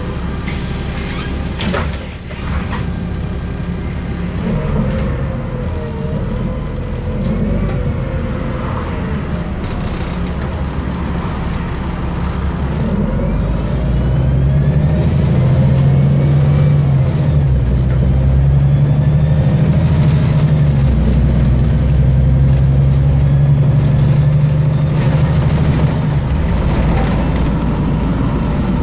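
Interior sound of a 2006 Volvo 7700A articulated city bus on the move. Its Volvo D7C 275 straight-six diesel and Voith automatic gearbox run with a steady low note and some rising whines, and the sound grows louder and heavier from about halfway through.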